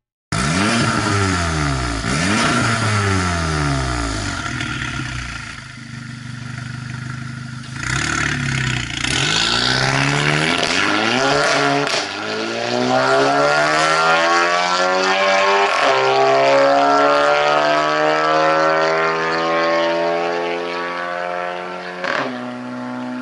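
Volkswagen Golf GTI Mk7's 2.0-litre turbocharged four-cylinder breathing through an Fi Exhaust catless downpipe and valved cat-back muffler, revving up hard several times with the pitch rising and dropping between runs. In the second half the note falls slowly and steadily, stepping down a couple of times.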